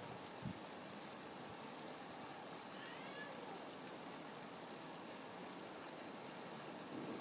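Steady rain falling, with a short bird call about three seconds in and a soft low knock about half a second in.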